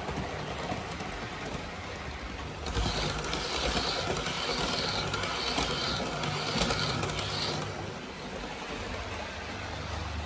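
Hornby OO-gauge GWR Class 800 model train running on its track under full-length load: steady whir of the small electric motor and rattle of wheels on rail, growing louder with a regular pulsing clatter for several seconds in the middle as it passes close by.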